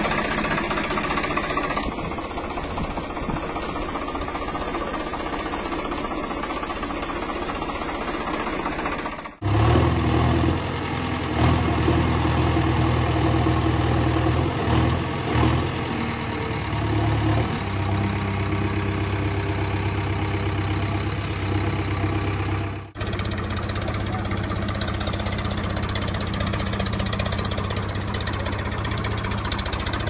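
Tractor engine running at a steady, knocking idle. The sound cuts out abruptly twice, about nine seconds in and again about twenty-three seconds in, and resumes each time; between the two cuts the low drone is louder and its level wavers.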